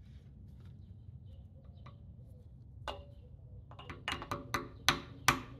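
A hammer tapping a socket, used as a drift, to drive the key into the crankshaft's keyway. One tap comes about three seconds in, then a quick run of about eight sharp metallic taps, each with a short ring; the last two are the loudest.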